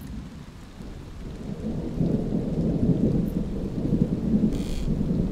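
Low, rumbling dark ambience that swells about two seconds in, with a brief higher hiss near the end.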